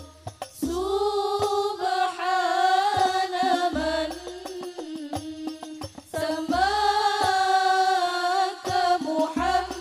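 An Al-Banjari sholawat ensemble: women's voices singing long, ornamented melodic lines over terbang frame drums. Deep drum strokes come about every three seconds, with sharper strokes between them.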